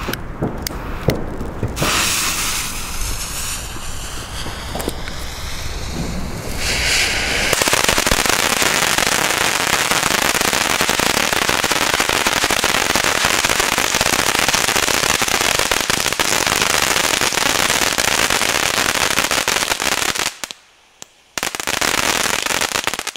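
A spark cracker fountain ("Funkencracker") burning: a hiss as it is lit and gets going, then from about eight seconds in a loud, dense crackling of many small cracker stars, with a break of about a second near the end.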